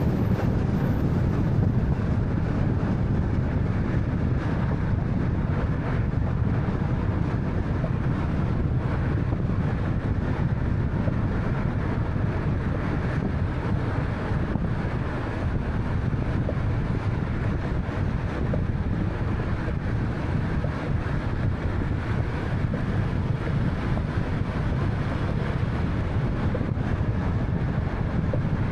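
Steady road noise from a moving 2013 Honda Fit with a 1.3-litre engine: tyre rumble and engine hum, heaviest in the low range, with a constant wash of wind.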